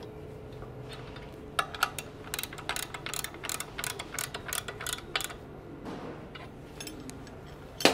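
Ratchet wrench clicking in quick runs, about five clicks a second, starting about a second and a half in, as the bolts holding a conveyor belt cleaner's tensioner to its mounting plate are tightened. A few more clicks come near the end.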